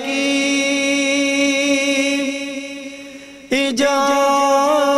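A man singing a naat, holding one long steady note that fades away, then starting the next sung syllable about three and a half seconds in.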